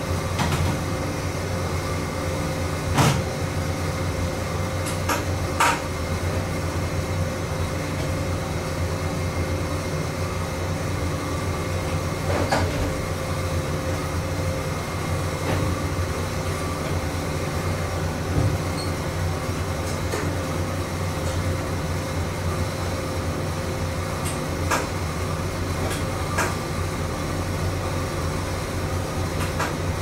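Toyama Chiho Railway 14760 series electric train standing still at a station, its onboard equipment humming steadily with a held tone. A few short clicks and knocks come at scattered moments.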